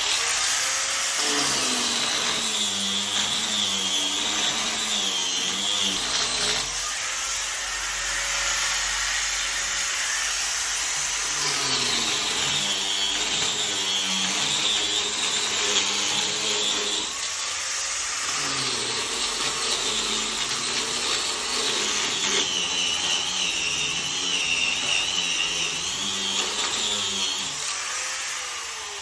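A handheld corded power tool running continuously on wood, its high motor whine wavering as it works under load, in stretches of a few seconds with slight easing between them.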